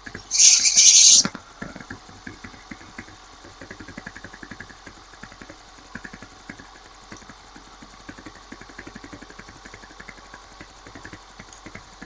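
A loud hiss of about a second near the start, as something is sprayed onto the squealing drive belt of a running car engine. After it the engine idles with even, rapid pulsing and no clear belt squeal.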